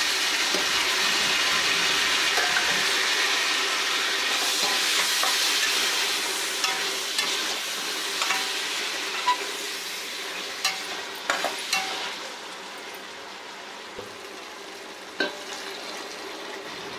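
Chopped tomatoes, onions and green chillies sizzling in hot oil and ghee in a pressure cooker while a steel slotted spatula stirs them. The sizzle is strongest in the first half and dies down after about ten seconds, with a few clicks of the spatula against the pot.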